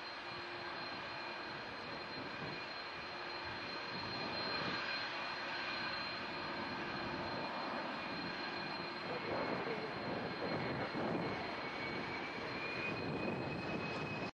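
Airbus A300B4-605R's two turbofan engines at takeoff thrust as the airliner climbs out: a steady jet roar with high whining fan tones. It grows louder and turns rougher and crackling about nine seconds in as the aircraft nears.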